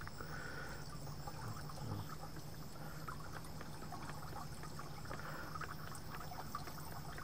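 Tiered garden fountain trickling steadily, water dribbling from its bowls.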